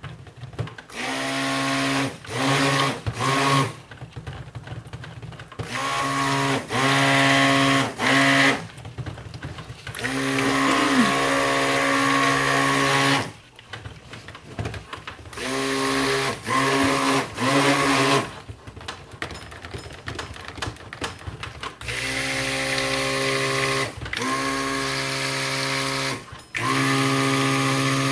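Handheld stick blender pulsed on and off in cold-process soap batter, its motor humming steadily and spinning up at the start of each burst. About a dozen bursts of half a second to three seconds, with short gaps between, and longer runs near the end.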